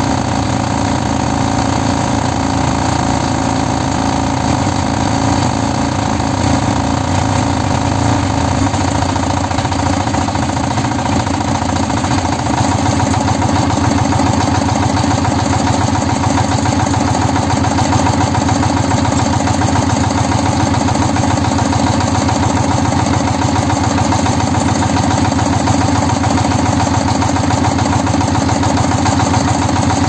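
Kirloskar MegaT 15 power tiller's single-cylinder diesel engine idling steadily, a little louder from about twelve seconds in.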